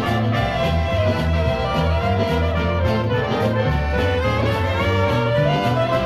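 Instrumental break of a Latin Christian song: band music with a steady beat, bass and melody instruments, brass or accordion-like lead, no singing.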